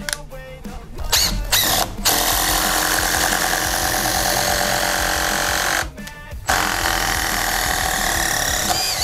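Makita oil-pulse (hydraulic) impact driver driving screws into wood in two steady runs, one of about four seconds and then, after a short pause, one of about two and a half seconds. It runs quietly, without the hard hammering of an ordinary impact driver.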